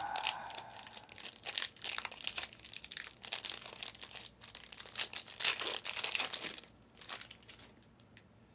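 Shiny foil trading-card pack wrappers being torn open and crinkled by hand: a run of sharp crackles and crinkles that dies away about seven seconds in.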